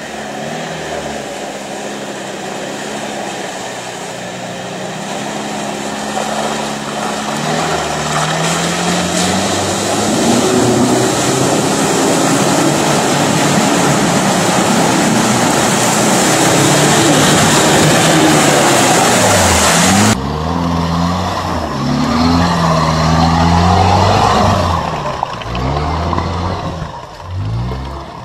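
Off-road 4x4 engine revving hard and unevenly as the vehicle ploughs through deep mud and water, with splashing. About twenty seconds in the sound cuts to another vehicle's engine revving up and down as it works through muddy ruts.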